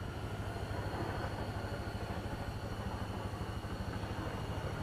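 Steady low mechanical hum with a faint high whine over it, unchanging throughout.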